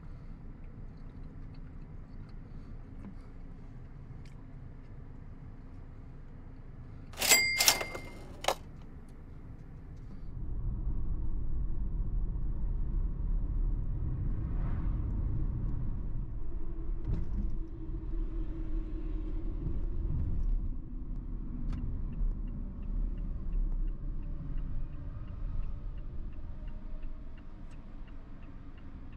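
Car driving along a road: low rumble of engine and tyre noise heard from inside the car, starting about ten seconds in after a quieter steady hum. Before it, around seven seconds in, two or three sharp clicks with a brief ringing tone.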